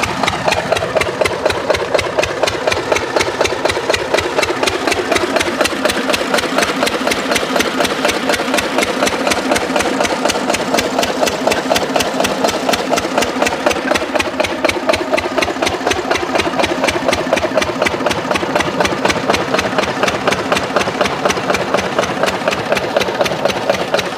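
Single-cylinder Lister-type stationary diesel engine running steadily on LPG from a domestic gas cylinder, with a fast, even beat of firing strokes as it belt-drives a borewell irrigation pump.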